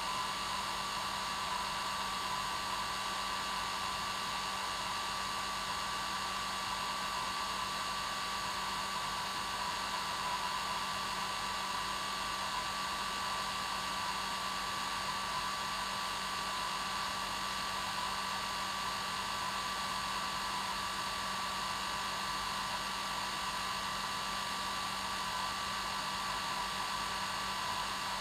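Hair dryer running steadily at its normal setting: an even rushing blow of air with a steady motor hum and whine that never changes.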